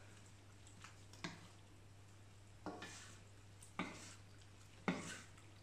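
Wooden spatula stirring a saucy stir-fry in a stainless steel AMC wok, with about six brief scrapes and knocks against the pan over a faint steady low hum.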